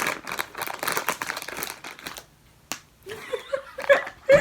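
Takeaway food packaging crinkling and rustling for about two seconds while being handled, then a single click; a voice is heard faintly near the end.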